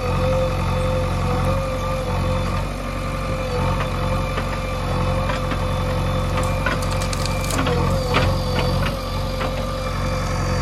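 JCB backhoe loader's diesel engine running steadily under a digging load, with a steady mid-pitched whine over it, while the backhoe works through brush. Scattered sharp clicks and cracks come in the second half.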